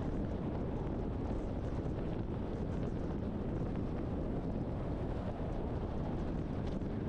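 Steady, low road and wind noise from a moving truck.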